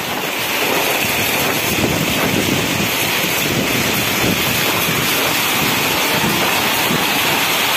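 Storm of heavy rain and strong wind: a steady dense rush of rain with wind blowing across the microphone, the rain beating on the plastic sheeting of a bamboo shelter.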